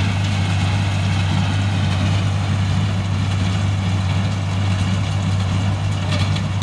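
Oliver 1650 tractor engine running steadily with a constant low tone while pulling a small square baler along a windrow.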